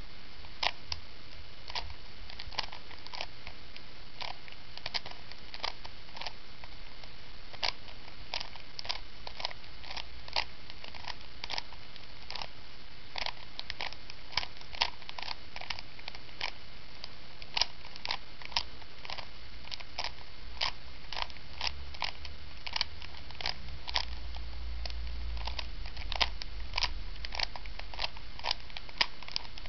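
Rubik's Cube layers being turned by hand: a long run of sharp, irregular plastic clicks, about two a second.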